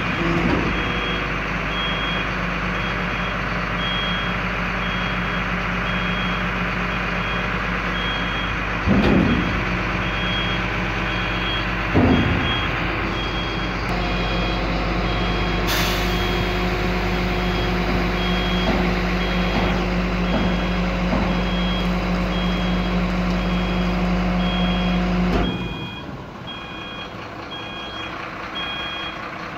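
Mercedes-Benz Axor 1829 refuse truck's diesel engine running steadily to drive the compactor hydraulics as the raised tailgate is worked, with a warning beeper beeping about twice a second throughout. There are two loud thumps around a third of the way in, and the engine drops back abruptly near the end as the tailgate comes down.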